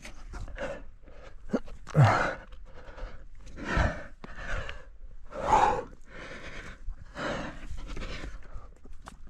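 A rock climber breathing hard while climbing, with loud forceful exhalations every second or two and a short grunt about two seconds in.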